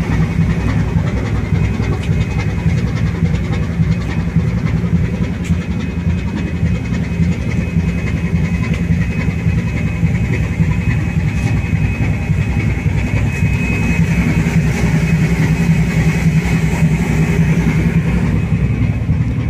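A ship's engine running steadily: a deep, even drone with a faint high whine over it.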